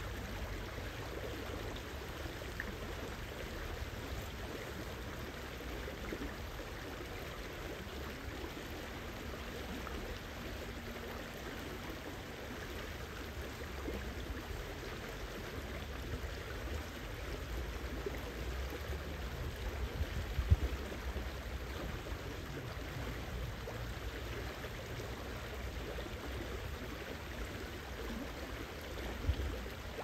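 Shallow river rippling and splashing over rocks, a steady flowing water noise, with a brief low bump about two-thirds of the way through.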